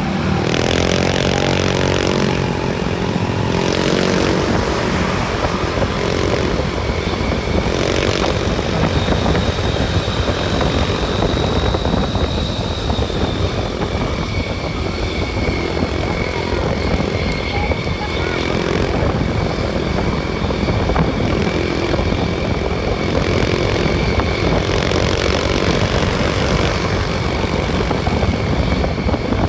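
A bus on the move: a steady drone of engine and road noise with a low rumble. A wavering pitched tone sounds in the first few seconds, and a faint high whine comes in later.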